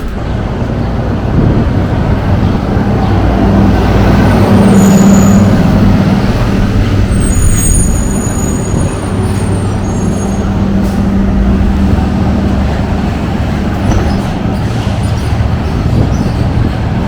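City street traffic with a heavy vehicle's engine running close by, swelling to its loudest about five seconds in. A few brief high squeals sound in the middle.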